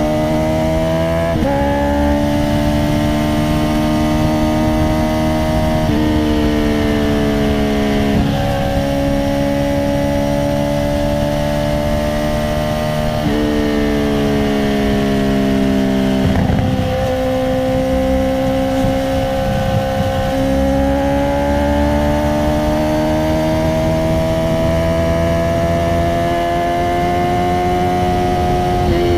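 Honda CBR650R inline-four running through an Akrapovic titanium exhaust with no dB killer, ridden on the road. The engine note climbs and eases off steadily, with several sudden pitch steps at gear changes.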